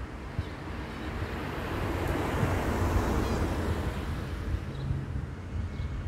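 A car passing by, its road noise swelling to a peak about halfway through and then fading, with wind rumbling on the microphone.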